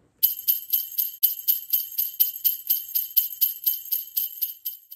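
Sleigh bells shaken in an even rhythm, about four jingles a second, stopping suddenly near the end.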